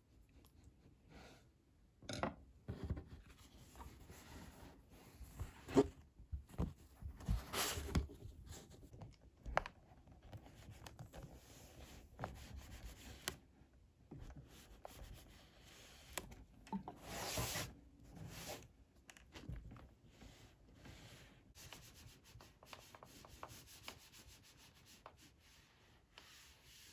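Bookbinding handling sounds: irregular rubbing, brushing and scraping of paper, fabric and board against a table, with louder rubs about two, eight and seventeen seconds in.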